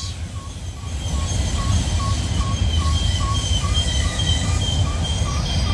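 Diesel locomotives of a Norfolk Southern coal train, two rear helper units, running past with a steady low rumble. A faint short high tone repeats about twice a second over it.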